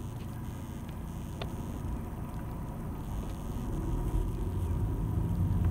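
Low rumble of a car driving, engine and road noise, growing louder from about halfway through.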